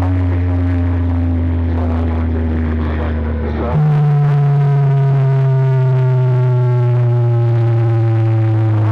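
Electronic bass drone from a DJ sound-competition track played loud over a sound system. A deep steady hum jumps to a higher pitch about four seconds in, and a stack of higher tones glides slowly downward over it.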